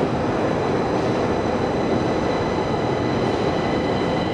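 Metro train running through the station, a steady loud noise with high squealing tones from the wheels coming in about a second and a half in.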